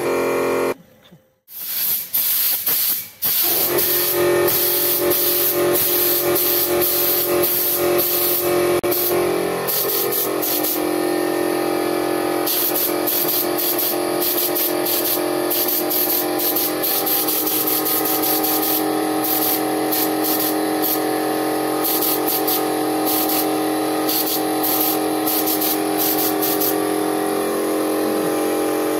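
Compressed-air spray gun hissing in on-and-off bursts as it sprays paint, over steady background music. The hiss starts about two seconds in, after a brief drop-out.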